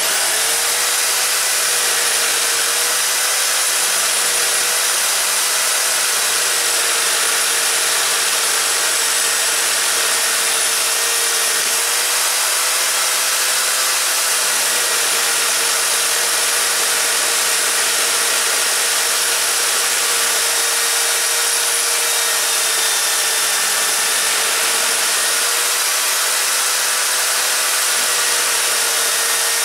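Bench-mounted electric drill running a wire wheel brush, with a steel spanner held against it to wire-brush it clean: a steady motor whine under the hiss of the wire bristles scraping the metal. The motor's pitch sags slightly at times.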